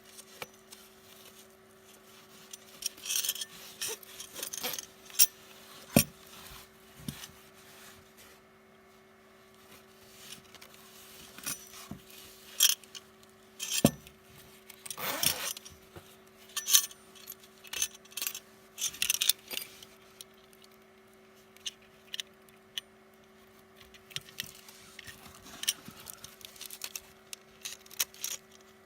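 A money belt and its packaging being handled: irregular clicks, taps and short rustling and scraping bursts, with a faint steady hum underneath.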